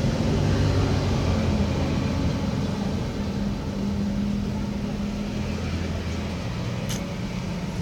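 Steady low engine hum with a slowly shifting pitch, and a short click about seven seconds in.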